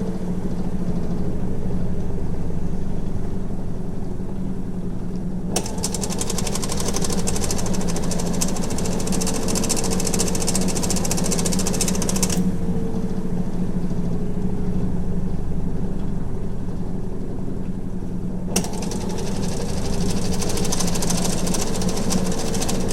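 Hitachi NW-6AZ washing machine's belt-driven, non-inverter motor running empty with a steady low hum. A harsh rattle cuts in about five seconds in, stops about halfway through, and returns near the end: the abnormal noise of a heavily worn machine.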